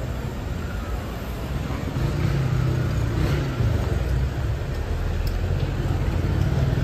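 City street traffic: a motor vehicle's engine running with a low rumble that gets louder about two seconds in and stays up.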